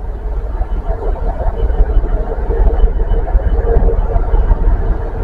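Class 66 diesel freight locomotive approaching with its engine running: a steady low rumble with a steady hum above it, growing a little louder after about a second.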